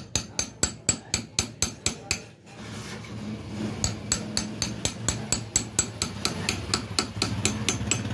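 Light, quick hammer taps on a steel punch held against the edge of a broken screw in an air rifle's action, about five taps a second, with a short pause about two and a half seconds in before the tapping resumes. The gentle tapping turns the broken screw out without damaging its threads.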